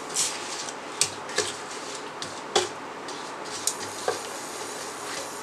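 A silicone spatula scraping cumin seeds and a bay leaf off a plate into a stainless steel pot of oil, then a wooden spoon stirring and tapping in the pot: a scattering of about six sharp clicks and knocks.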